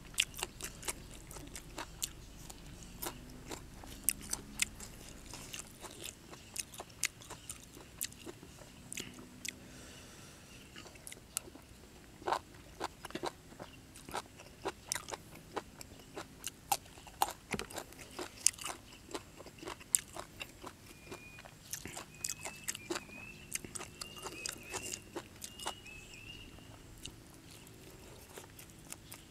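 A person chewing and crunching mouthfuls of raw beef and fresh greens close to the microphone, with many sharp wet mouth clicks scattered irregularly throughout.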